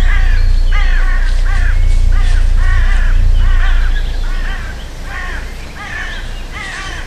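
Crows cawing over and over, about two harsh calls a second, some overlapping, over a low rumble that fades about four seconds in.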